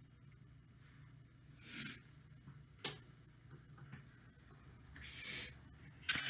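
Small handling sounds over a low steady hum: three brief soft rustles and one sharp click.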